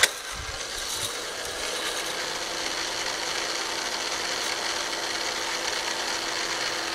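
K'nex roller coaster's plastic lift chain and its small motor running steadily, a continuous mechanical rattle with a faint steady hum. A sharp knock right at the start.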